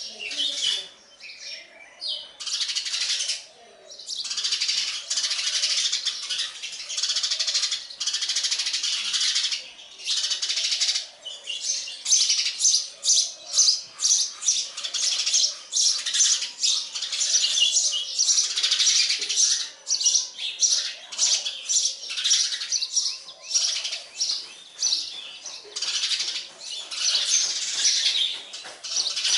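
House sparrows chirping in a dense, almost unbroken run of high, rapid chirps, with short pauses in the first few seconds.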